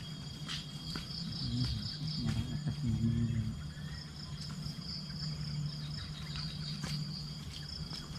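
Insects chirring steadily in a high, finely pulsing trill, with a low steady hum underneath.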